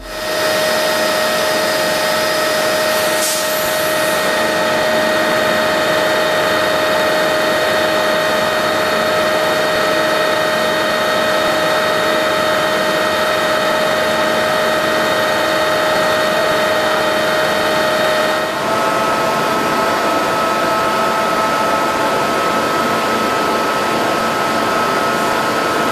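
Thread-rolling machine cold-rolling a steel screw shaft between grooved dies under flowing coolant: a steady mechanical hum and whine with several held tones. About two-thirds of the way in the tones shift slightly higher.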